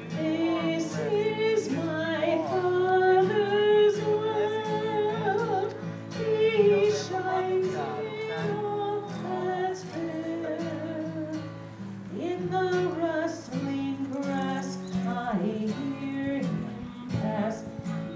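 A woman singing a hymn with acoustic guitar accompaniment.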